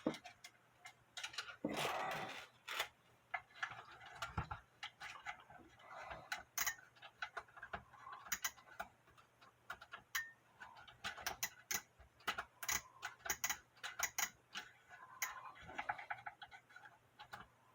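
Cuckoo clock weight chain clicking and rattling in short, irregular bursts of light clicks as it is fed down into the clock movement's chain hole and worked onto the chain wheel.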